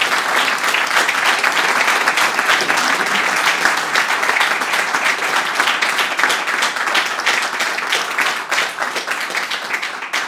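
Audience applauding, a steady dense clapping that thins out near the end.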